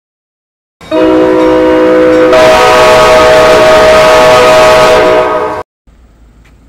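Very loud train air horn chord, sounding just under a second in, switching about two seconds later to a different chord with a hiss over it, then cutting off abruptly at about five and a half seconds.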